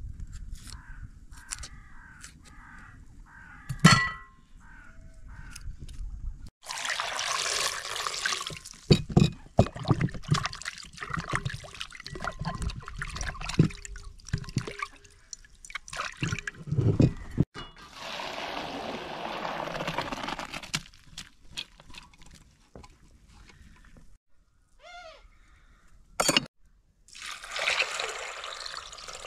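Water splashing and pouring in a glass bowl as a peeled onion is rinsed by hand, in several spells with short pauses. Near the end, a stream of water is poured from above into a glass bowl of grains. The first few seconds hold only a low rumble and a single knock.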